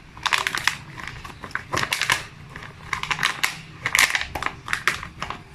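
Homemade slime being squished and pressed by hand, giving about five bursts of wet crackling and popping.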